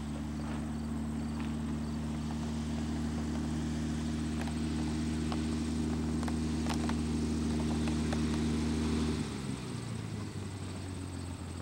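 Steady engine drone with an even low pitch that changes abruptly and drops about nine seconds in, with a few faint clicks on top.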